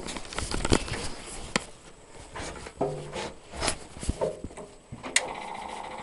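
Metal knocks and clunks from the hatch and fittings of a Saladin armoured car as someone climbs into the driver's compartment. About five seconds in, a steady rapid ticking starts up and keeps going.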